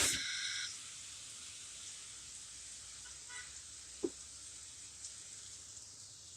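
Steady hiss of heavy rain falling. A brief loud burst with a tone opens it, and there is a single knock about four seconds in.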